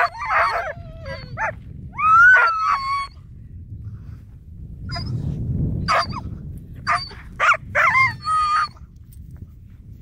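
Sled dogs whining and yelping in short cries that bend up and down in pitch. There is a longer whine about two seconds in and a quick run of yelps between about five and nine seconds in, over a steady low rumble.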